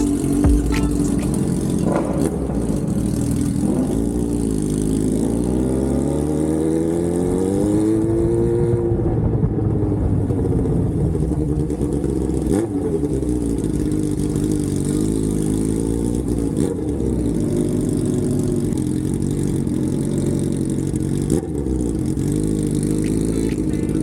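Yamaha R1 sport bike engine under way. It revs up with a steadily rising pitch for several seconds, drops back about halfway through, then runs at a fairly even pitch while cruising.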